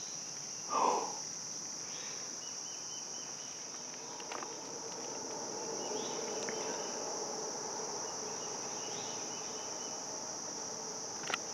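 Steady high-pitched chorus of insects singing in the woods, with a quieter pulsing trill coming and going beneath it. A short falling sound stands out about a second in, and a sharp click comes near the end.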